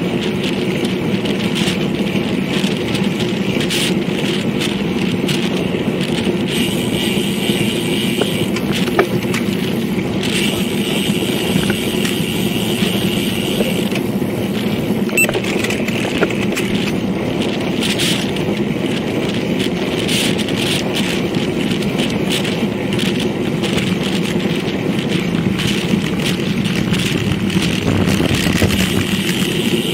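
Road bicycle rolling at speed on a paved path, recorded by a bike-mounted action camera: steady rolling noise with frequent small clicks and rattles.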